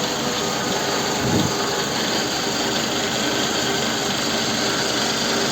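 Toyota Estima engine idling, heard from underneath near the oil pan, running steadily with no knock, its balance shafts freshly restored. A brief low rumble about a second in.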